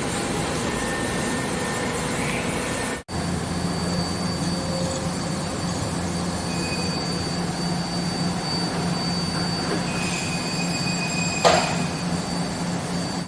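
A metal-cutting machine tool running steadily, with a low hum and a thin high whine. The sound drops out briefly about three seconds in, and there is a short sharp squeal or click near the end.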